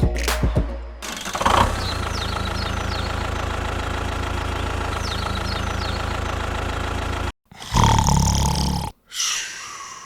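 An engine idling steadily, then cut off abruptly about seven seconds in, followed by a short, louder burst of engine sound that also stops suddenly.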